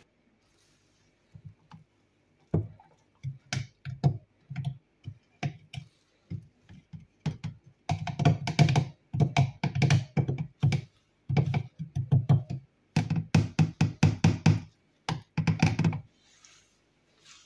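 Stick blender run in many short bursts in a plastic beaker, with knocks, as it purées chunks of apple and carrot with water into juice. The bursts are sparse at first and come rapidly, several a second, from about eight seconds in, stopping shortly before the end.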